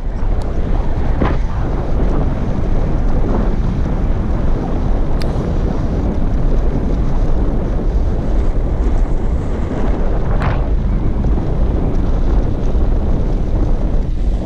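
Wind buffeting the microphone of a camera mounted on a moving bicycle, with the rumble of the tyres over grass-block paving. Loud and steady throughout.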